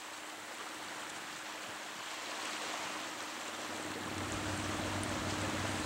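Sea washing against shoreline rocks, with the steady low drone of a fishing boat's engine, which swells louder about two-thirds of the way through.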